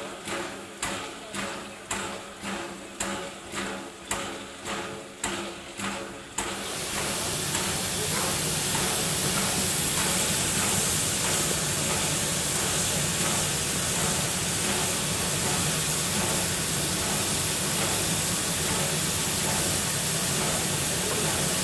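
Standing steam locomotive, beating rhythmically about twice a second. About six seconds in, a loud, steady hiss of escaping steam starts suddenly and keeps going.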